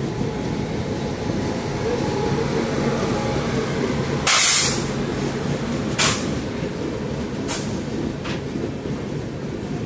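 Steady low rumble of a train running on the track, heard from on board. A loud sharp crash of noise comes about four seconds in, followed by shorter, weaker ones about six, seven and a half and eight seconds in.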